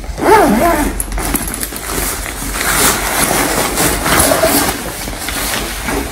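Rustling and crinkling of a recycled-polyester (rPET) diaper bag's fabric as its flap is lifted and the changing mat inside is pulled out. A brief bit of voice comes about half a second in.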